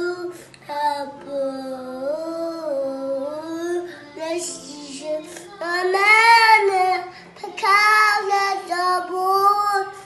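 A young child singing in long, wavering notes, louder from about the middle on.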